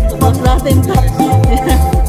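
Background music with a steady beat: heavy bass thumps, crisp high ticks and a held melodic tone.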